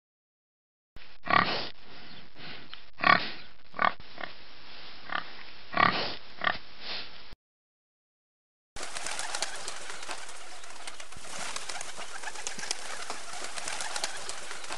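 Birds calling, in two separate recordings: first about a dozen short calls over six seconds, a few much louder than the rest, then after a short break a dense, continuous chatter of many birds.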